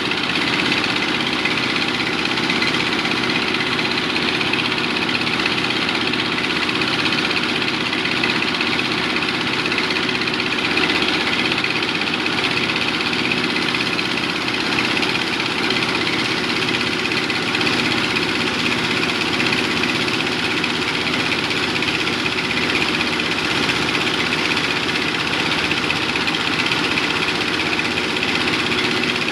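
Small engine of construction machinery running steadily at a constant speed.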